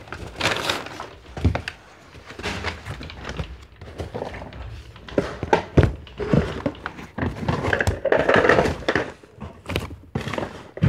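Objects being handled and knocked about while rummaging through belongings: a string of irregular thuds and clatters, busiest about eight seconds in.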